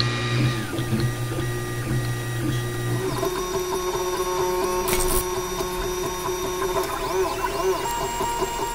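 FDM 3D printer running a print: its stepper motors whine in tones that glide up and down as the print head moves. The pattern of tones changes about three seconds in, and a short click comes about five seconds in.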